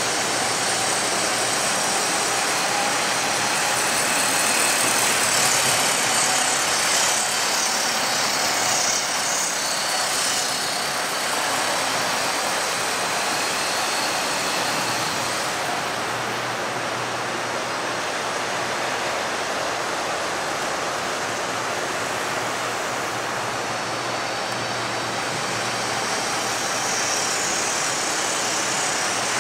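Model trains running around a layout: a steady rolling whir and rumble from the track.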